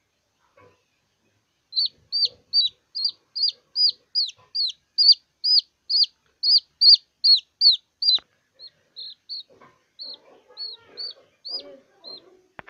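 A baby chick peeping loudly and repeatedly while held in the hand, about two to three high peeps a second, each dropping in pitch. From about eight seconds in the peeps turn shorter and quieter, with faint rustling from the handling.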